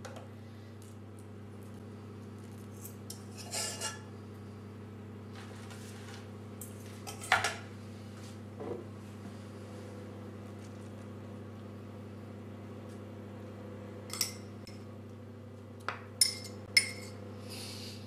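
A spoon scraping and clinking against a cooking pot and a small bowl while sauce and grated cheese are spread over a baking tray. There are a few scattered sharp clinks, the loudest about seven seconds in, and a quick run of them near the end, over a steady low hum.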